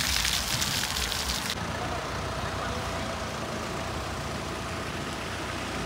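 Water fountain spraying and splashing, cutting off abruptly about one and a half seconds in. After it comes a steady low background hum.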